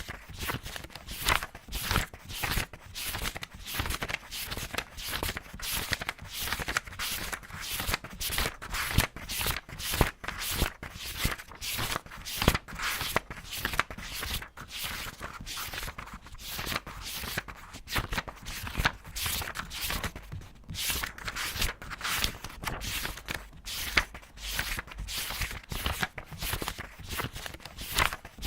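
Paper pages being turned quickly one after another: a rapid run of crisp rustles and flicks, about two to three a second.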